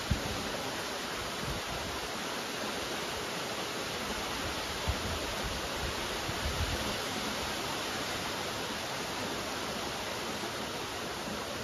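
Steady rain falling, an even hiss of many drops, with a few brief low thuds near the start and in the middle.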